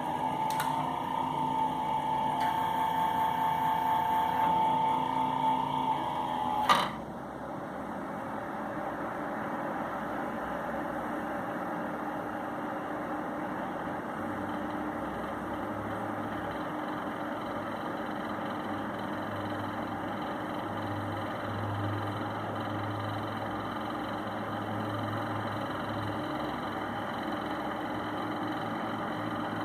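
Power supply noise: a steady high whine, then a sharp click about seven seconds in, after which a steady hum and hiss go on. This is the kind of noise that leads an owner to record a faulty power supply.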